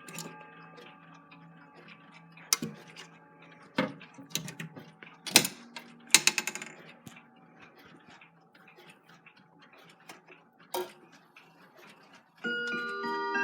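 Chiming clocks: the ringing tones of one chime fade away, followed by scattered sharp mechanical clicks and knocks and a brief rapid run of clicks. Near the end, another clock suddenly starts its chime with several loud ringing tones.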